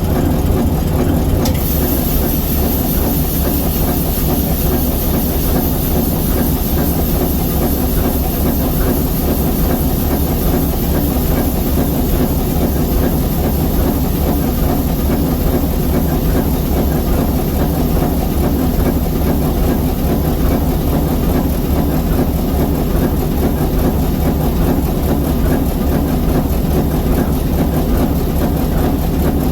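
ALCO 539T turbocharged inline-six diesel prime mover of an ALCO S4 locomotive running at a steady speed, a deep, rapid, even beat of firing pulses. A high hiss comes in about a second and a half in and carries on over the engine.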